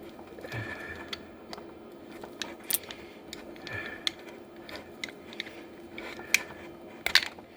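Light clicks and scrapes of a cable gland being tightened onto a dive light's power cable with a hand tool, irregular and a few seconds apart, the loudest a quick cluster near the end. A faint steady hum runs under them.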